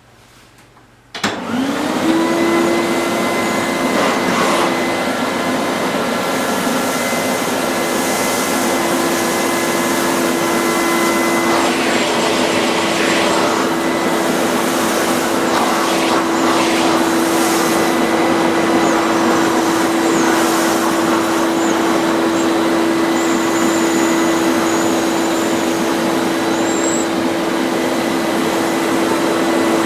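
An old canister vacuum cleaner's motor switched on about a second in, spinning up quickly to a loud, steady whine that holds on while it runs.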